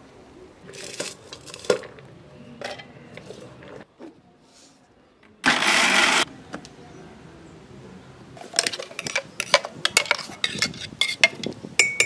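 An electric mixer grinder runs in one short pulse of under a second, about halfway through, grinding beetroot with a little water in its steel jar. A few knocks come before it, and near the end there is a quick run of sharp clinks and scrapes of a steel spoon against the steel jar and bowl.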